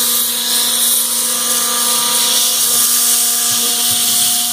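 CAMaster CR-304 CNC router spindle running at a steady speed while milling aluminum: a steady whine with a strong high hiss over it.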